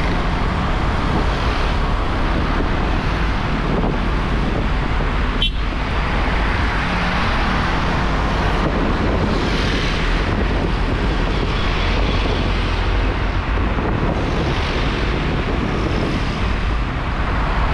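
Riding motorcycle at road speed: a steady rush of wind on the microphone over engine and road noise, with a single sharp click about five and a half seconds in.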